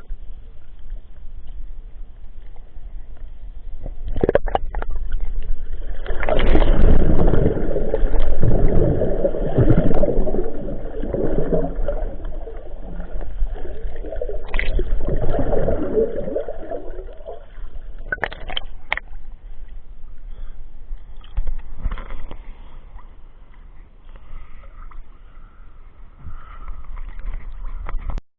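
Sea waves washing and sloshing against the shore, with one long loud surge of water from about six to seventeen seconds in, under a constant low rumble of wind on the microphone.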